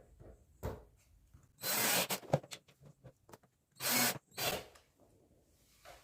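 A power drill running in short bursts of about half a second, first about two seconds in and again about four seconds in, with a knock before and small clicks and taps between the runs.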